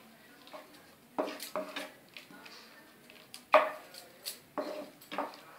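Wooden slotted spatula scraping and knocking against a non-stick wok while stirring a thickened sauce: a series of irregular strokes, the loudest about three and a half seconds in.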